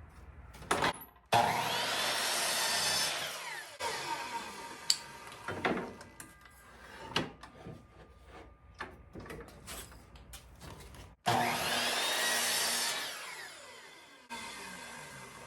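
An electric power saw switched on twice, about ten seconds apart, each run lasting about two seconds as it cuts wood; its whine rises and then falls away as the blade spins down. Scattered wooden knocks and clicks fall between the two runs.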